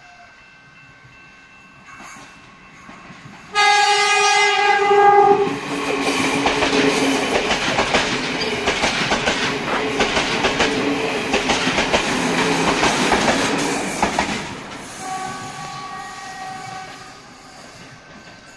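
A Sri Lanka Railways S9 diesel multiple unit sounds a loud horn blast lasting about two seconds, starting about three and a half seconds in. It then passes close by, its wheels clicking over the rail joints under the rumble of the train. The sound fades after it has gone by, and a fainter horn note sounds near the end.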